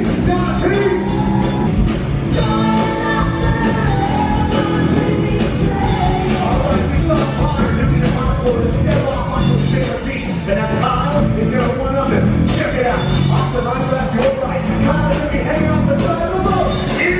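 Loud rock music with a singer and a steady drum beat.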